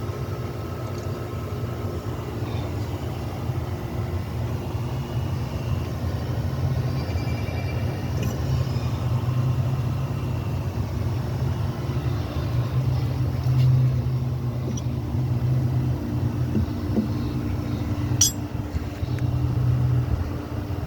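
5.9 Cummins 12-valve inline-six diesel engine running steadily, an engine with an exhaust leak. One sharp click sounds near the end.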